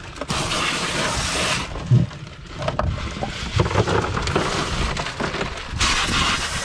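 Hissing rush of water, with a few knocks and thumps as fish are shifted about in a boat's fiberglass fish box.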